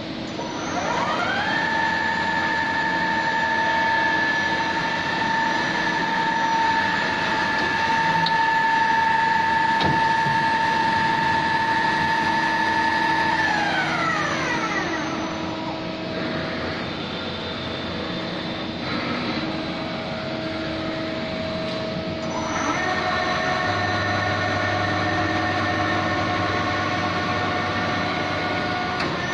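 Femco Durga 25E CNC lathe running: a spindle drive whine rises as the spindle spins up, holds one steady pitch for about twelve seconds, then falls away as it spins down. About eight seconds later a different steady machine hum with several tones and a low drone comes in.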